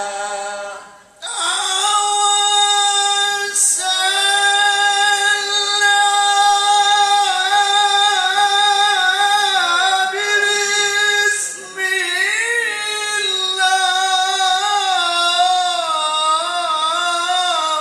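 A male Quran reciter (qari) chanting in the melodic mujawwad style into a handheld microphone. He holds long, ornamented notes in a high register, pausing for breath about a second in and again near the middle.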